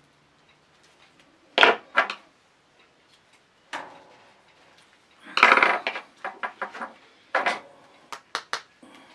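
Pliers and other metal hand tools clinking and knocking while working on a carved wooden fishing lure: a string of sharp clicks and clacks, with a dense cluster about five and a half seconds in.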